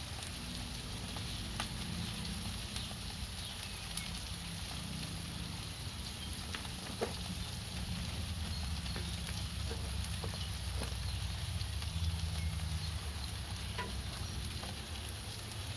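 Food sizzling on a hot cooking surface, with scattered crackles and pops over a steady hiss and a low, steady rumble underneath.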